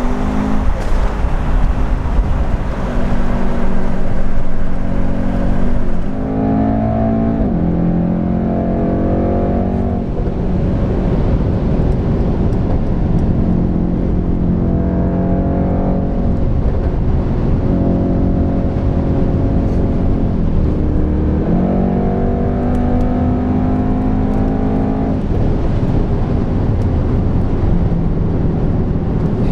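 Mercedes-AMG E63 S twin-turbo V8 accelerating hard, its pitch climbing through each gear and dropping back at the upshifts in several long pulls, over steady tyre and wind noise inside the car's cabin.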